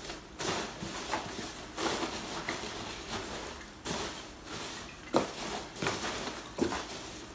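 Hands rummaging through a cardboard box of polystyrene packing peanuts, the peanuts rustling and shuffling in repeated swells, with a few sharper knocks and scrapes against the box, the loudest about five seconds in.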